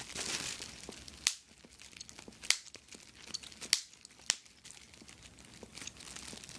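Small-bubble bubble wrap crinkling as it is squeezed between the fingers, with four sharp snaps in the first four and a half seconds. The bubbles are tiny and hard to pop.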